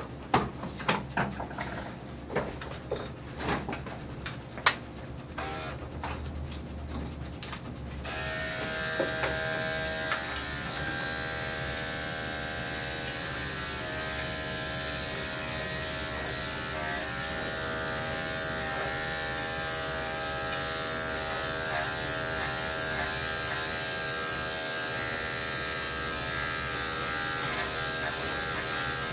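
Electric pet-grooming clippers switch on about eight seconds in and run with a steady hum as they are worked through the dog's thick coat. Before that come a series of sharp clicks.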